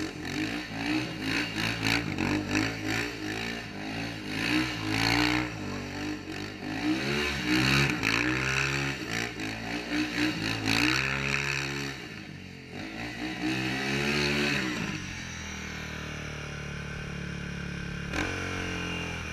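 Yamaha Raptor 660 quad's single-cylinder four-stroke engine revving up and down over and over as the quad spins in loose dirt, then settling to a steadier, lower drone for the last few seconds.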